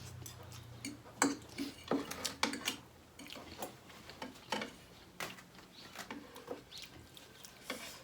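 Eating at the table, close to the microphone: a string of small sharp clicks and taps from chewing and utensils on plates.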